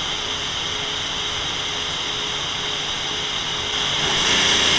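Volcano MF150D boiler's feed water pump coming on and running as valve 8 is slowly opened: a steady hiss with a faint hum, growing louder about four seconds in.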